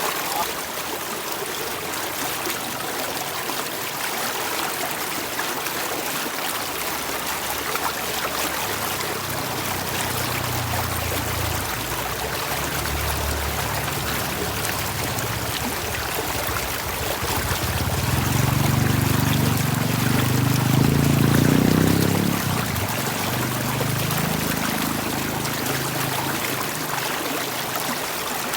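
Water running steadily in a stream, a continuous trickling and rushing. A low rumble builds in the background from about eight seconds in, is loudest around twenty seconds, then fades away.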